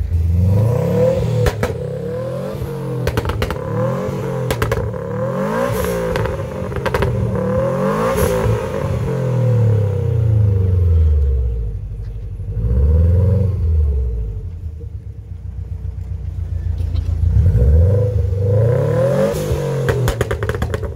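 The turbocharged flat-four of a first-generation Subaru Impreza WRX STI is revved hard again and again while standing still, the revs climbing and dropping back in quick blips with sharp cracks from the exhaust. About two-thirds of the way through it settles to a lumpy idle for a few seconds, then is blipped again near the end.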